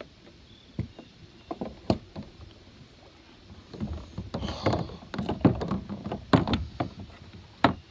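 Irregular knocks and thumps against a small boat's hull as a freshly landed bass and tackle are handled aboard. A few sharp knocks come first, then a busier run of thumps and scrapes from about four seconds in.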